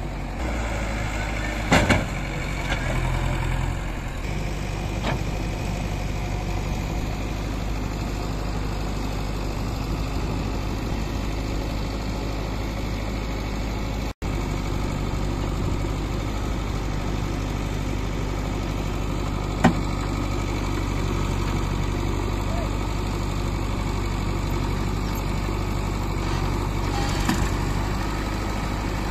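Diesel engines of a JCB 3DX backhoe loader and a tractor running steadily, with a few brief knocks from the working machine, the loudest about two seconds in.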